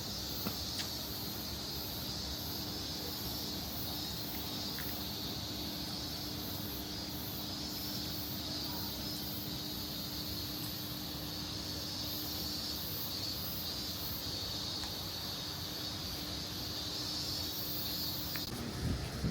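Steady outdoor ambience: a low rush with a constant high-pitched hiss and a faint steady hum, changing abruptly near the end.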